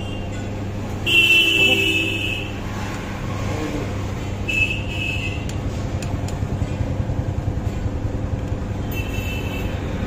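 Road traffic going by, with vehicle horns honking three times: a longer honk about a second in, a short one around five seconds, and another near the end, over the steady drone of passing engines.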